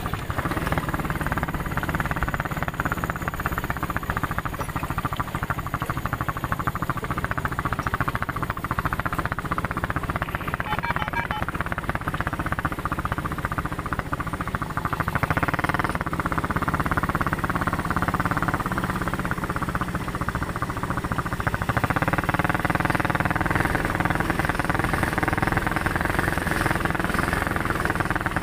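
ATV (quad bike) engine running, picking up about halfway through and again toward the end.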